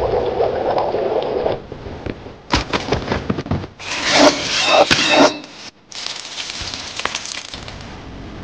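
A knife sawing and scraping through the crisp skin and meat of a roasted animal head, in several rasping strokes. The loudest stretch comes about four to five seconds in, and fainter scraping follows.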